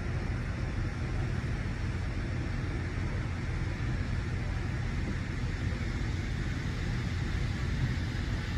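Steady low engine rumble across a harbor, with a fainter hiss over it, unchanging throughout.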